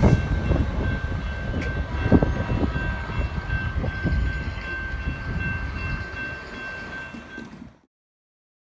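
Commuter train rolling away over the rails, its rumble and wheel clicks fading, while a grade-crossing bell rings with a steady high tone. The sound cuts off abruptly near the end.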